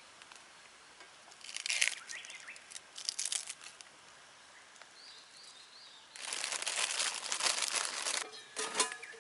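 Crisp crinkling and tearing as shredded cabbage from a stir-fry vegetable mix is torn apart by hand. It comes in short bursts about two and three seconds in, then a longer two-second stretch about six seconds in.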